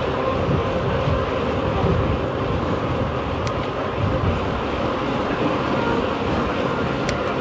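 Steady wind rushing over the microphone with the rolling noise of bicycle tyres on tarmac, as a loaded bike is ridden along a road.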